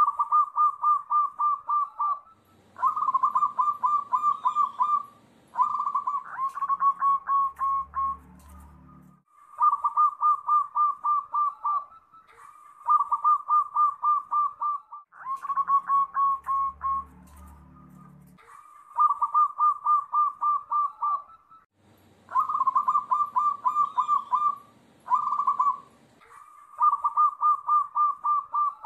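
Zebra dove (perkutut) cooing in a long run of phrases, each about two seconds of rapid pulsed notes, with brief pauses between them. A low rumble sits under the calls twice.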